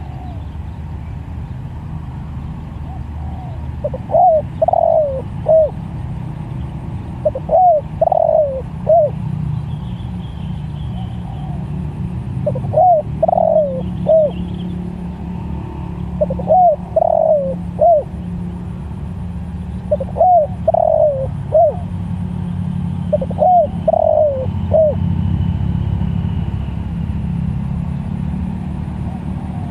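Spotted dove (tekukur) cooing: six short phrases of three or four notes each, repeating about every three to four seconds, over a steady low rumble.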